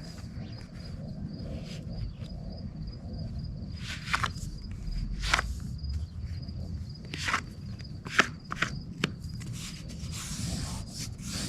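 Self-adhesive flashing tape being smoothed and pressed by hand into a joint, giving scattered sharp crackles and rustles, about five distinct ones. A steady, thin, high-pitched trill runs underneath.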